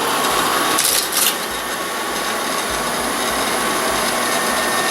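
Window air conditioner running: a steady rushing fan noise with a faint steady hum, and a brief rattle about a second in.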